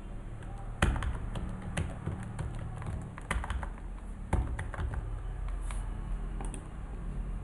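Computer keyboard keystrokes: irregular typing, with a couple of louder key presses about a second in and near the middle, over a low steady hum.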